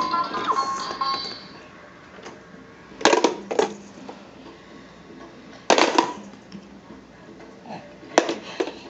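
Hard plastic balls clattering in a Roll-A-Round gumball machine toy, in three short bursts of rattling knocks a few seconds apart. A tinny electronic toy tune fades out in the first second.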